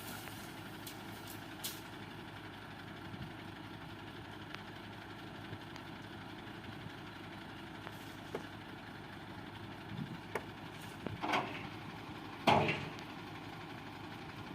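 Heavy truck engine idling steadily, with a few small clicks and two brief, louder knocks near the end.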